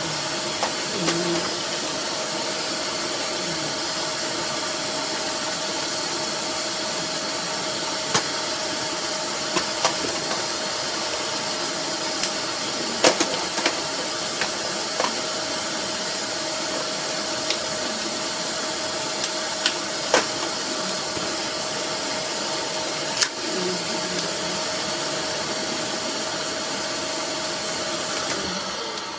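Eureka Whirlwind bagless canister vacuum cleaner running with a steady rushing hiss and a constant whine, with scattered sharp clicks. It winds down near the end.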